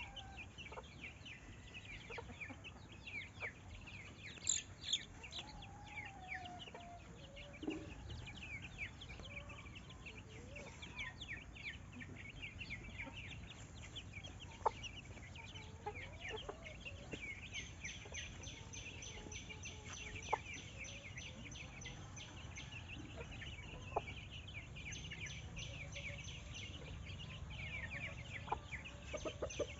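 Chickens clucking over a busy chorus of small birds chirping. A few sharp clicks are scattered through, and a high, rapidly pulsing note joins in past the middle.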